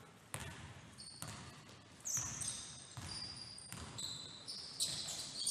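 A basketball bouncing on a hardwood gym floor about once a second, with sneakers squeaking in short, high chirps from about two seconds in.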